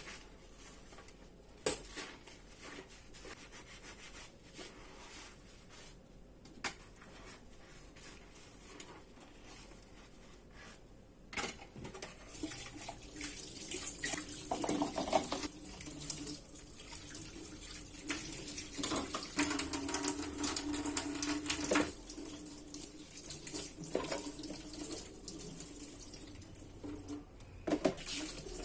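Dishes being washed at a sink: a few sharp clinks, then about a third of the way in a tap starts running steadily into the sink, with dishes knocking against each other.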